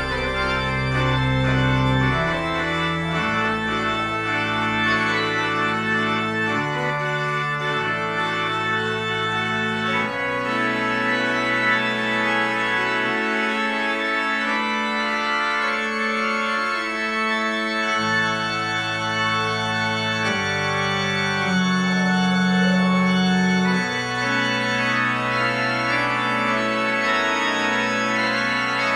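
Church organ playing the postlude at the close of a service: full held chords over deep sustained bass notes, the harmony changing every few seconds.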